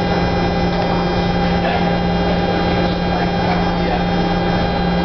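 Steady hum with several held tones from the onboard equipment of a TTC H5 subway car, heard from inside the car while it stands at a station.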